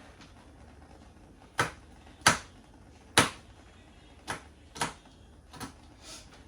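About six sharp, irregularly spaced knocks from hands-on kitchen work with garlic cloves. The two loudest come a little under a second apart, about two to three seconds in, and the later ones are softer.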